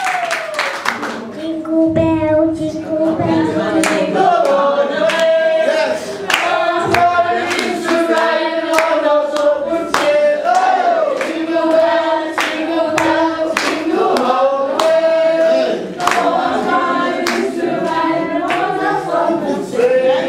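Children's choir singing a Christmas song, with sharp beats at a steady pace.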